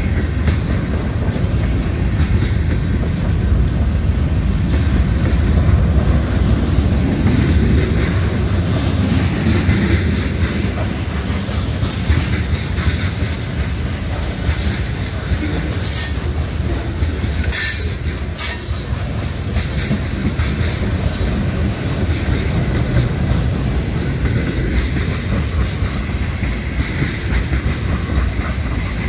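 Freight cars (tank cars, covered hoppers and boxcars) rolling past close by: a steady low rumble of wheels on rail with clickety-clack, and a few brief sharp high sounds around the middle.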